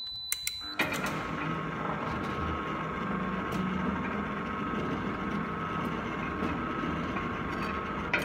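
A short high beep from the wireless keypad with a few key clicks, then the electric gate-opener motor starts about a second in and runs with a steady hum.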